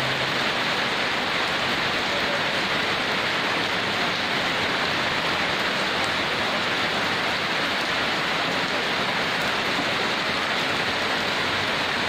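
Heavy rain falling steadily: an even, unbroken hiss with no single drops or gusts standing out.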